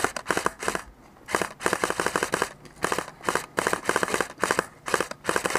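Airsoft rifle firing a dozen or so short, rapid full-auto bursts, with a brief pause about a second in.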